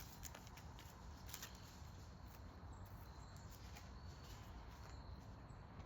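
Near silence: faint outdoor background with a few faint clicks.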